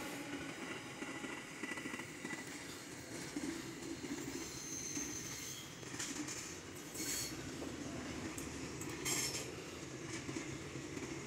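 Container freight train wagons rolling past: a steady rumble of steel wheels on rail, with a few brief high-pitched wheel squeals, one about halfway and others later on.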